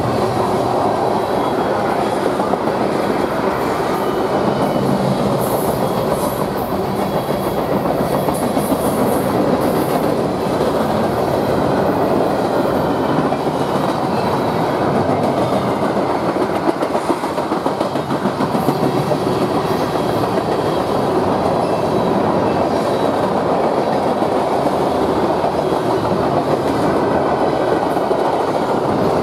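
Manifest freight train's cars (covered hoppers, a boxcar, a tank car) rolling steadily past at close range: a continuous, even noise of steel wheels on rail.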